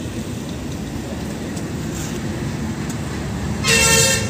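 A short car horn beep lasting about half a second, near the end, over a steady low rumble of outdoor vehicle noise.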